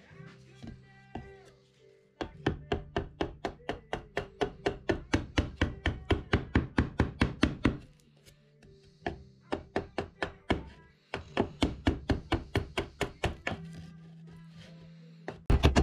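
A mallet striking a wood chisel in quick, even blows, several a second, as the chisel cuts into a pine board; the blows come in two long runs with a short pause between, over background music.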